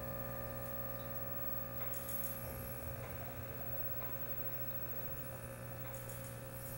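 Steady electrical hum of running aquarium equipment, with a few faint crackles and ticks.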